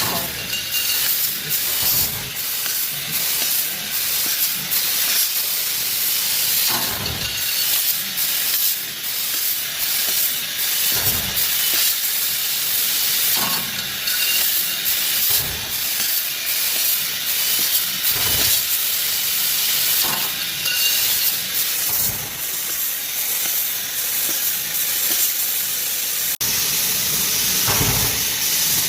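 Laser tube cutting machine at work: a steady loud hiss of the cutting head, with occasional dull knocks as the tube and machine move.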